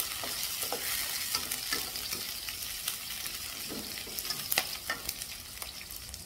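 Shallots, garlic, bay leaves, lemongrass and galangal sizzling as they are stir-fried in a metal wok, with a spatula stirring and scraping. Scattered clicks of the spatula on the wok, and a sharper knock about four and a half seconds in.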